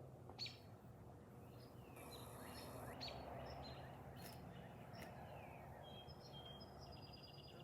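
Faint background of scattered bird chirps, with a quick run of chirps near the end, over a low steady hum and a soft noise haze.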